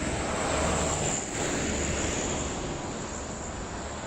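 Road traffic passing: a steady rush of engine and tyre noise that fades somewhat over the last couple of seconds.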